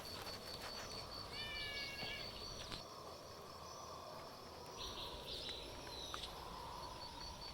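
A stray cat meows once, a short call about a second and a half in, over steady outdoor background noise with a faint, evenly pulsing high-pitched tone.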